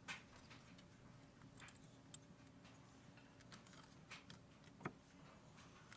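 Near silence broken by a few faint, scattered clicks and taps of brake pads and a retaining clip being fitted into a Mazda RX-7 FC brake caliper, the sharpest click just before five seconds in.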